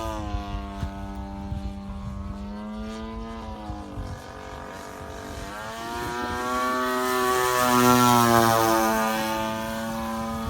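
Giant-scale RC YAK54 aerobatic plane's gas two-stroke engine and propeller buzzing in flight. Its note eases and quietens midway, then swells into a loud fly-by about eight seconds in, its pitch dropping as it goes past.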